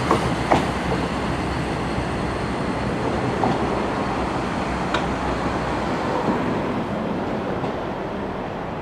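NIR 3000 Class diesel multiple unit pulling away, its running noise slowly fading as it recedes, with sharp wheel clicks over the track, the loudest just after the start.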